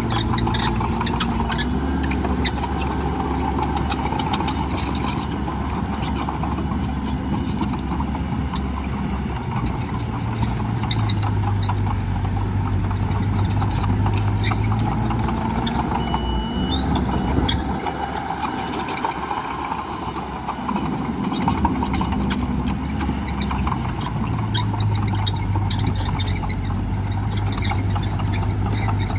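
Heavy diesel engine of earthmoving equipment running and working, its pitch rising and falling. It eases off for a few seconds past the middle and then picks up again, with scattered clanks.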